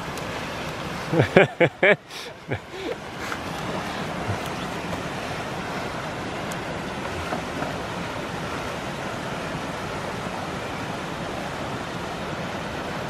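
A few short, loud voice-like sounds about a second in, then a steady rushing noise.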